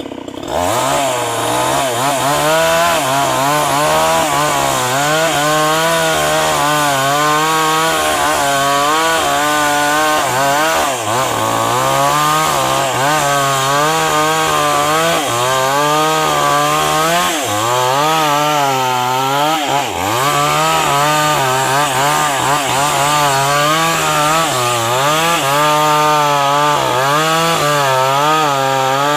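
Chainsaw running under load while cutting a tree. Its engine pitch rises and falls over and over as the chain bites into the wood and frees up.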